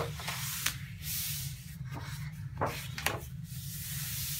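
Sheets of a 170 gsm scrapbook paper pad rustling and sliding as a hand turns them over and smooths them flat, with a few short, sharp paper flicks.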